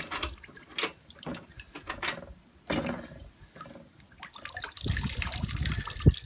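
Water trickling and dribbling out through the perforated steel cylinder of a hand-operated ratchet briquette press as the wet paper-and-sawdust pulp is squeezed, with a few metal knocks from the lever and ratchet. A sharp knock near the end is the loudest sound.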